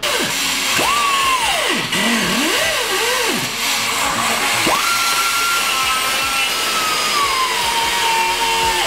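Angle grinder cutting into a steel car exhaust pipe: a harsh grinding hiss under the motor's whine. The whine drops and swoops up and down several times in the first few seconds as the disc bites, then from about five seconds in holds high and slowly falls in pitch.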